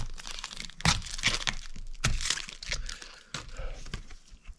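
Thin plastic crackling and crinkling as it is handled: the helmet face shield and its peeled-back protective film being worked around a Pinlock anti-fog insert. There are sharp cracks about a second in and again about two seconds in, and the crackling thins out near the end.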